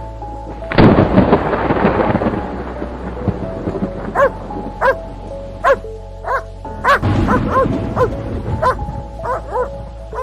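A rumble of thunder about a second in, then a dog barking about a dozen times in short, irregular barks, over a sustained music bed.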